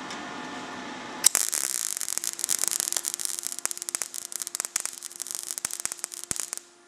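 MIG welder arc on thin steel sheet, crackling irregularly with many sharp pops; it starts about a second in and cuts off just before the end. The welder is deliberately set too cold, at too low a voltage, and the uneven, spattering crackle is typical of a cold weld.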